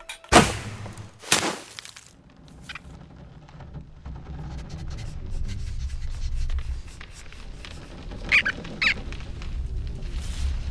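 Cartoon soundtrack effects: two sudden whooshes about a second apart near the start, then a low rumbling noise that builds up, and two short high squeaks about half a second apart near the end.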